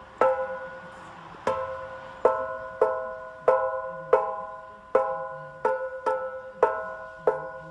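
Aftermarket exhaust mid silencer of a Mercedes W204 C63 AMG flicked with a finger about ten times, roughly every 0.7 s. Each flick rings like a bell, with a clear chord of several tones that fades within a second: the silencer's shell is vibrating, and the same ringing could be heard from it while driving.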